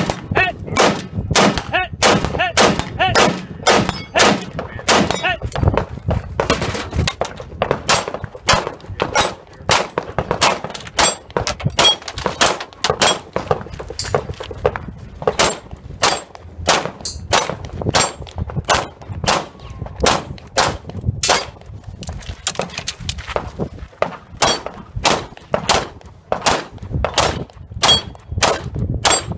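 Rapid semi-automatic gunfire in quick strings, dozens of shots, from an AR-15-style rifle, switching to a pistol near the end. Many shots are followed by a short high ding of steel plate targets ringing on a hit.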